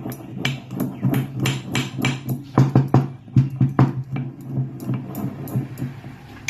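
Long pepper (pippali) being pounded into powder with a pestle in a mortar: a steady run of knocks, about three a second, that thins out over the last couple of seconds.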